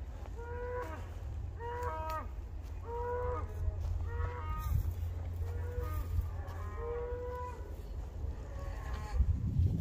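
Cattle mooing: short calls from more than one animal, repeating about once a second at slightly different pitches, over a steady low rumble.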